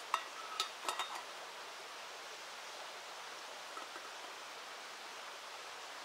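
A quick run of clinks from utensils against camp cookware, about four or five strikes with a brief ring, all in the first second or so. Under them runs the steady rush of the river.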